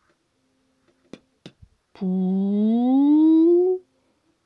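A woman's voice drawing out a long 'ouuu' vowel, rising slowly in pitch, as she sounds out the syllable 'pou' while writing it. It follows two or three light pen clicks on paper.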